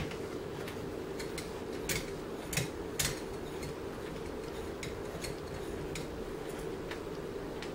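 Small metallic clicks and clinks of a small Phillips screwdriver working the screws out of a laptop's screen bezel, scattered irregularly and loudest a little before the middle, over a steady low hum.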